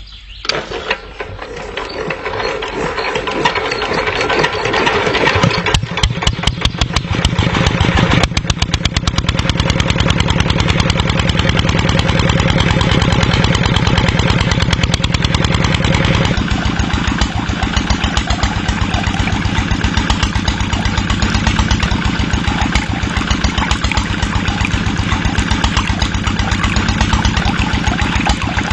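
Small engine starting up and running, its rapid regular firing pulses speeding up and growing louder over the first few seconds, then running on steadily. The tone changes noticeably about eight seconds in and again about sixteen seconds in.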